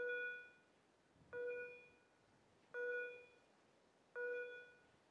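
Level crossing warning bell ringing, four evenly spaced strokes about 1.4 seconds apart, each fading within about half a second: the crossing's alarm that a train is approaching.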